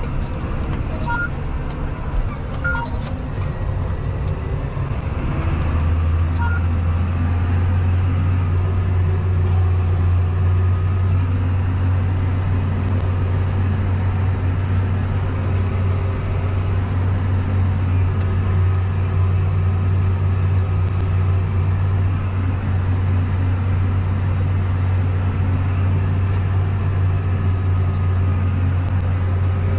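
Tractor diesel engine heard from inside the cab while pulling a Horsch disc harrow through stubble; the steady drone grows louder and deeper about five seconds in and then holds under load. Three short electronic beeps sound in the first several seconds.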